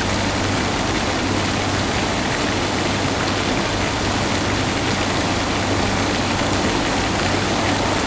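Steady rushing noise with a low hum underneath, unchanging throughout.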